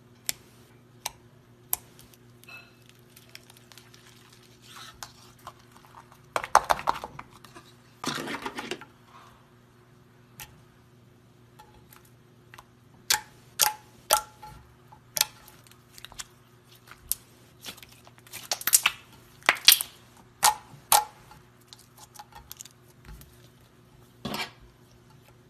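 Slime being poked, stretched and squeezed by hand, making sharp clicks and pops throughout, with two longer crackly squishes about a quarter of the way in. A faint steady hum runs underneath.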